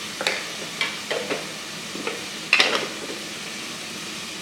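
A spoon stirring and scraping a pan of frying chicken masala with onion and tomato over a steady sizzle. It scrapes about six times in the first three seconds, the loudest scrape about two and a half seconds in.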